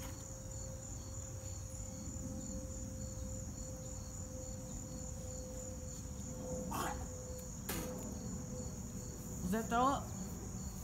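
Crickets chirping steadily, a continuous high trill with an even pulse. Near the end a person makes a short vocal sound that rises in pitch.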